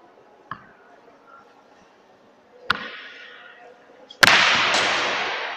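Roller hockey shots: hard ball and stick impacts, a sharp crack about two and a half seconds in, then a much louder crack about four seconds in with a second right after it, each ringing on in the long echo of the big hall.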